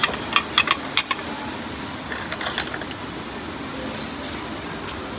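Ceramic plates clinking against each other as they are lifted from a stack, in a quick run of clinks in the first second and a few more about two to three seconds in, over steady background noise.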